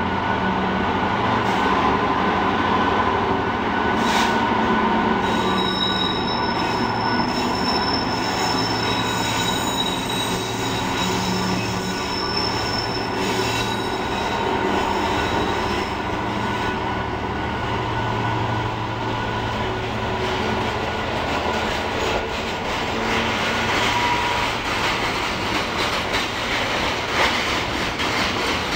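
Class 77 (EMD JT42CWR) diesel locomotive with its two-stroke V12 running as it hauls a train of hopper wagons past, wheels squealing in thin high tones for several seconds in the middle. Near the end the wagons' wheels rumble and clatter over the rail joints.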